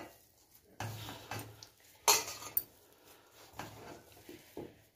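A hand mixing grated potato and arrowroot in a stainless steel bowl. The bowl knocks and scrapes in irregular bursts, the loudest about two seconds in.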